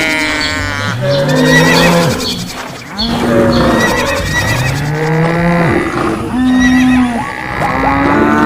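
Overlapping cartoon animal-call sound effects. Three long, low, drawn-out calls, starting about one, three and six seconds in, are mixed with higher cries and calls.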